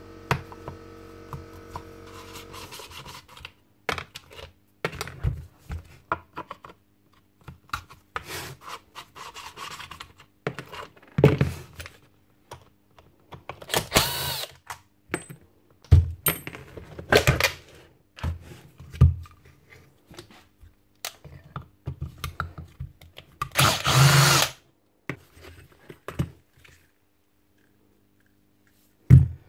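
Power drill-driver running in short bursts, backing screws out of an old Makita 9069 angle grinder's gear housing, with clinks and knocks of metal parts being handled in between.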